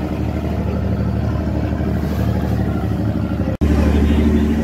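Speedboat engine running steadily, with water and wind noise over a low drone. It cuts out for an instant about three and a half seconds in and comes back louder.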